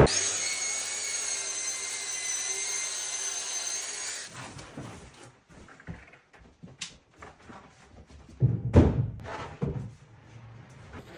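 A power tool running with a steady high whine for about four seconds, then winding down and stopping. After it come scattered light knocks and a few heavier thuds as wooden panels are handled.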